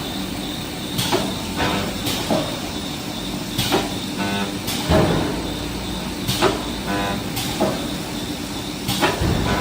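Corrugated fin forming machine running: a steady mechanical hum with repeated clanking strokes, roughly one a second.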